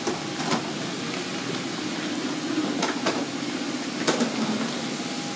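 Steady hum of an airliner cabin during boarding, the even rush of the aircraft's ventilation and ground power, with a few short clicks and knocks, the loudest about four seconds in.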